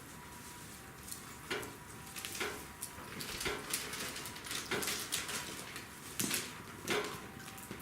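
Wood campfire burning, with irregular sharp crackles and pops, about six in a few seconds, over a low hiss.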